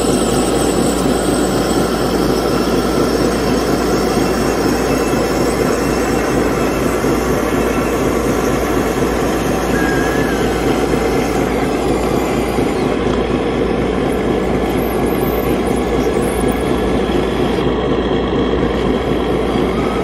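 Steady diesel-style engine idle from the radio-controlled model truck and CAT hydraulic excavator, with an even low pulse.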